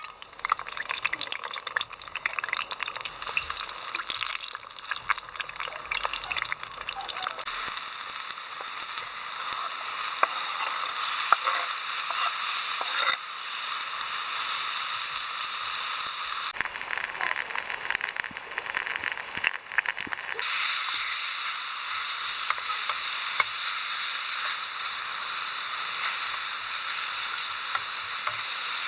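Food sizzling and frying in a hot pan, a dense hiss full of small crackles that shifts abruptly a few times.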